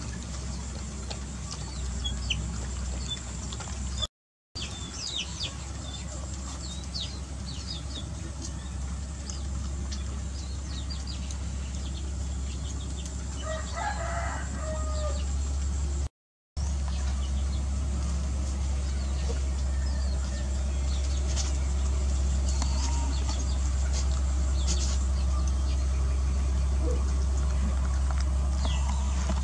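Puppies lapping and chewing wet rice from a plastic bowl, small scattered wet clicks over a steady low hum. A single short animal call comes about fourteen seconds in, and the sound cuts out briefly twice.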